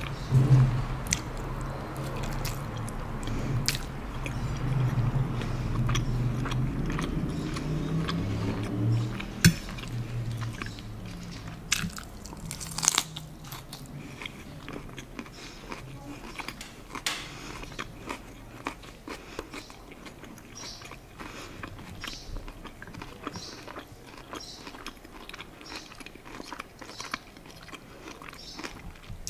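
Close-miked chewing and biting of food, with a full low mouth sound for the first ten seconds or so. After that come many sharp, crisp crunches and clicks as forkfuls of salad greens and shredded carrot are chewed.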